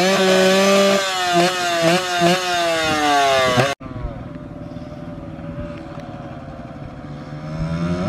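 Yamaha supermoto motorcycle revved repeatedly, its pitch shooting up and sinking back several times. About four seconds in it cuts to a quieter, steadier sound of motorcycles riding at a distance, which grows louder near the end as they come closer.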